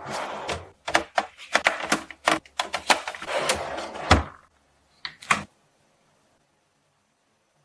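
Refrigerator pull-out drawer being slid and handled: a quick run of clicks, knocks and sliding rattles, with a heavier thump about four seconds in, then two light clicks.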